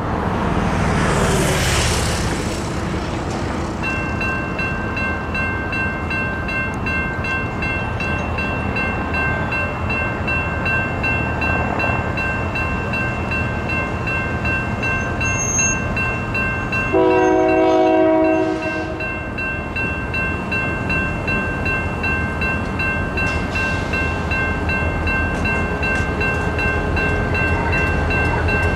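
NEG electronic railroad crossing bells start ringing about four seconds in and keep ringing steadily as the crossing gates come down, after a vehicle whooshes past at the start. About seventeen seconds in, the approaching Union Pacific diesel locomotive sounds its horn in one loud blast of about a second and a half, and the low rumble of the oncoming train grows near the end.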